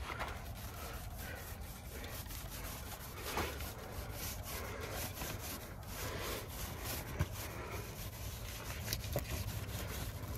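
Small paint roller rolled back and forth over rough, weathered wooden bench slats, spreading dark paint: a steady rubbing on the wood.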